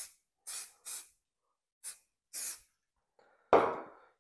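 Five short sprays from an aerosol can of CA glue accelerator, each a brief hiss, in the first two and a half seconds. A single loud knock comes about three and a half seconds in.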